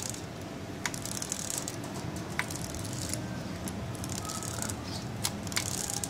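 Honda CD-70 timing chain pulled by hand through the crankcase, running over the crankshaft sprocket and tensioner: a light metallic chain rattle with a few sharp clicks. The chain running freely shows it is seated properly.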